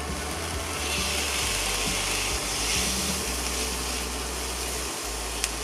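Boiled carrots, green beans and peas sizzling in hot oil with fried onions in a frying pan as they are stirred with a silicone spatula: a steady hiss, with a small click near the end.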